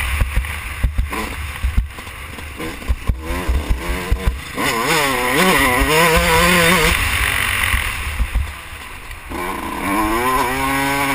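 Yamaha YZ125 two-stroke motocross bike ridden hard, heard from the rider's helmet camera with wind buffeting and knocks on the microphone. For the first few seconds the buffeting and bumps dominate; about halfway the engine revs up strongly and falls off, then it revs up again near the end.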